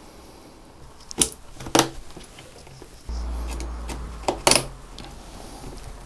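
DDR4 memory sticks pressed into motherboard DIMM slots, the slots' plastic retention clips snapping shut with sharp clicks, the click that tells a stick is fully seated. Two clicks come in the first two seconds, then two more close together about four and a half seconds in, over a low rumble of hands pressing on the board.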